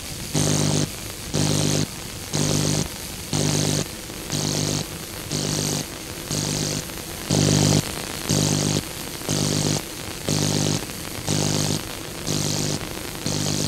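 A buzzing tone that pulses on and off about once a second, each pulse about half a second long, over a steady background hiss.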